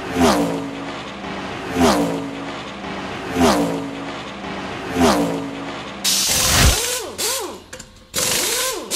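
Logo-intro sound effects: a whoosh with a falling tone, repeated four times about every second and a half, then a longer noisy rush with warbling tones that bend up and down.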